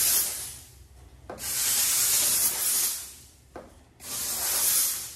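Steam-cleaner gun hissing in blasts onto car paint: one dying away at the start, then two more of about a second and a half each, with short pauses between.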